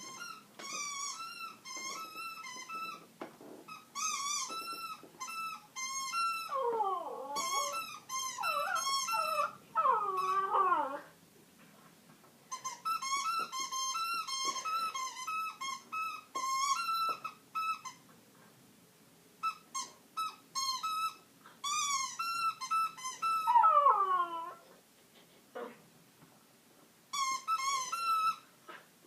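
Rubber chicken squeak toy squawking in quick runs of short squeaks as a pet bites and squeezes it, in bursts with pauses between, with a few longer squawks that fall in pitch.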